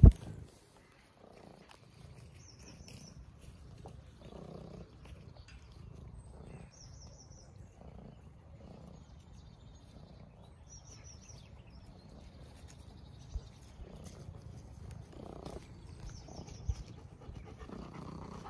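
Domestic cat purring close to the microphone, a soft low rumble that swells and fades in slow breaths. A bird's short high chirps repeat every few seconds, and there are two brief knocks in the last few seconds.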